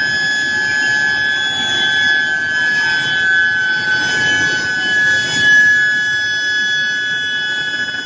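Steel-bar induction reheating furnace running, its coils giving off a steady high-pitched whine with fainter overtones, over a broad rumble of the roller conveyor line.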